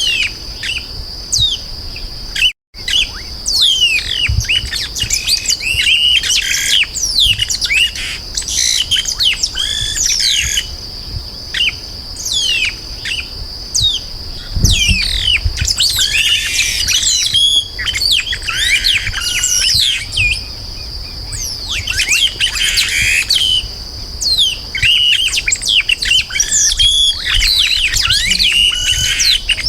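Chopim-do-brejo (yellow-rumped marshbird) singing: dense runs of quick, high, downward-sliding whistled notes mixed with rougher chattering phrases, in bursts that come and go every few seconds.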